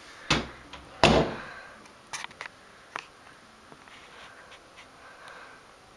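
Two dull thumps less than a second apart, the second louder with a short fading tail, then a few light clicks.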